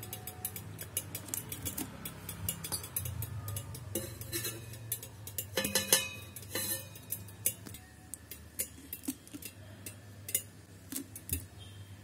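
Scattered light clinks and knocks of kitchen things handled against and around a stainless-steel electric kettle, the sharpest about four and six seconds in, over a steady low hum.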